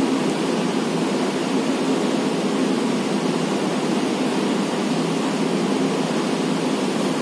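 A steady, even rushing noise with no distinct events and no change in level.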